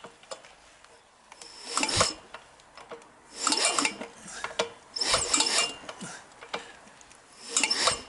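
Yamaha XS650 engine being kicked over on its kickstarter: four short mechanical bursts about one and a half seconds apart, the crankshaft turning the dual-lobe points cam.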